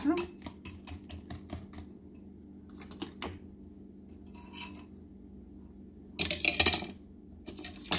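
Wire whisk beating egg and nopales in a bowl, a quick run of metal clicks against the bowl for about the first two seconds, then a few scattered clinks. About six seconds in there is a louder short noise.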